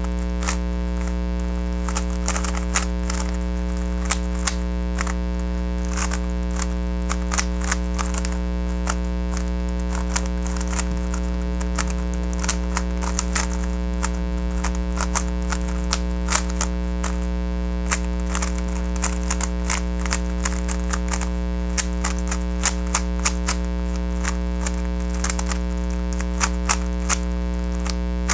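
Plastic speed cube being turned rapidly by hand, a stream of irregular sharp clicks and clacks as the layers snap round, over a steady electrical hum.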